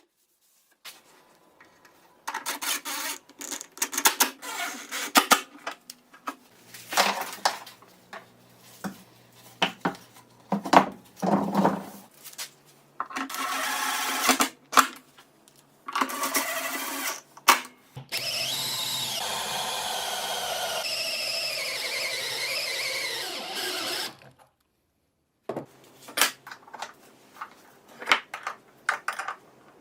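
Power tool running in short stop-start bursts among sharp clicks and knocks of metal workshop handling. One longer run of about six seconds comes after the middle, its whine sliding down in pitch.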